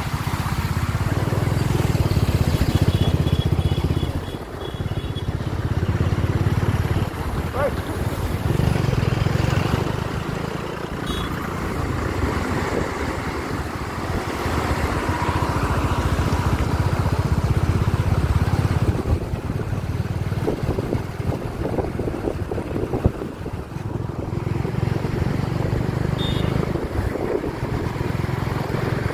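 Wind buffeting the microphone of a moving motorcycle over its running engine, with the low rumble of heavy dump trucks alongside. The rumble swells and eases several times.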